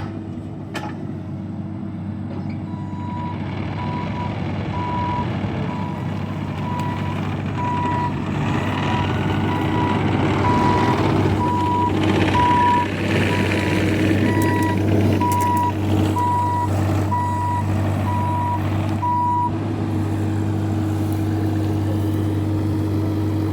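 Diesel machinery engine running steadily while a backup alarm beeps repeatedly on one pitch. The beeping starts a few seconds in and stops a few seconds before the end.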